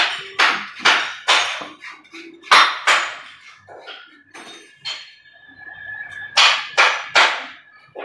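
A loose hacksaw blade sawing through a small white PVC pipe by hand, in rasping strokes that come in quick runs of two or three with short pauses between.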